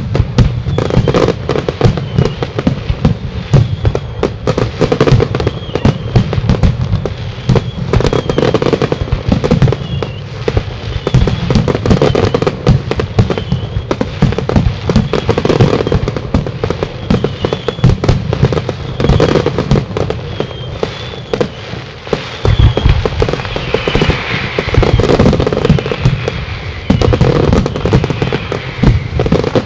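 Aerial fireworks shells bursting in a dense, continuous barrage of loud bangs, many a second, with no pause.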